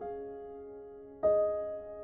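Slow, soft solo piano music: a chord at the start and another about a second in, each left to ring and fade.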